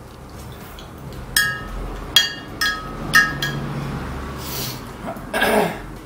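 A metal utensil clinking against a bowl four times in quick succession, each strike ringing briefly. A short rushing noise follows near the end.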